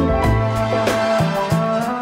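Dance music playing with a steady beat, a bass line and held melody notes.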